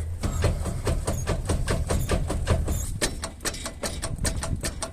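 Worn lower control arm bushings knocking metal on metal as the wheel is moved: a rapid run of sharp clicks and knocks, several a second, over a low hum.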